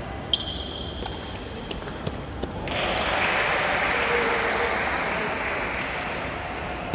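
A few sharp clicks of a table tennis ball, the first followed by a brief ringing tone, then spectators applauding from a little under three seconds in.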